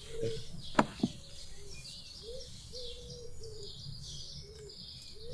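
Birds chirping in the surrounding trees. About a second in there are two knocks from the wooden park bench as someone sits down on it, the first of them the loudest sound.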